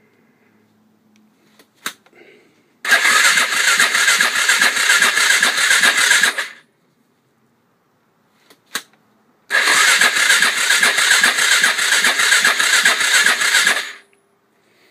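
Electric starter cranking the big-bore Suzuki DR350's single-cylinder engine twice, about four seconds each time, each run preceded by a short click. Both times it cuts off without the engine firing. It is a cold engine with no smell of fuel, which the owner puts down to little or no gas in the carburettor's float bowl.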